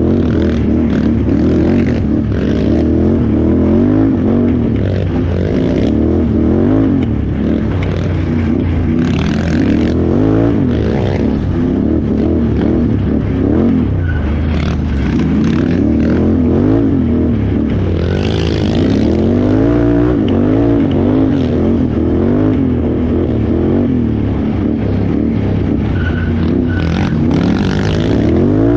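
Can-Am Renegade XXC 1000R ATV's V-twin engine under hard off-road riding, revving up and falling back again and again as the throttle is worked. A few brief bursts of rushing noise sit over it.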